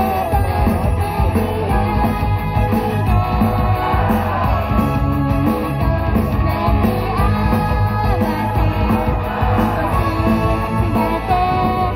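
Upbeat pop song with girls' voices singing, played loud through the stage PA speakers.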